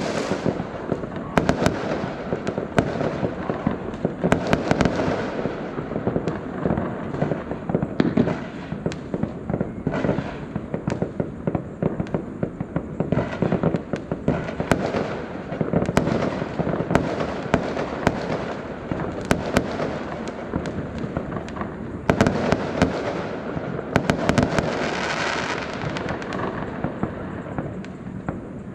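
Fireworks going off without pause: a dense crackle of many overlapping bangs, with sharp cracks standing out all through.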